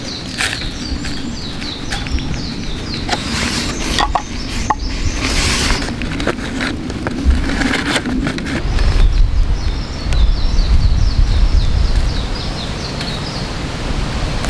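Paper coffee filter crinkling and rustling as hands fold it and seat it in a wire dripper, with scattered small clicks, over repeated high chirping in the background. A low rumble builds in the second half and is the loudest part.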